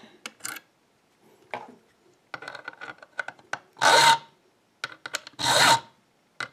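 Steel hand file rasping across a key blade clamped in a vise: two strokes in the second half, after a few light metal clicks. The key's cut is being filed deeper to suit a longer key pin.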